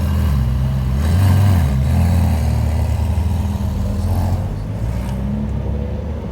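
Ferrari sports car engine running loudly, its low note swelling and easing as it is revved, a little quieter from about four and a half seconds in.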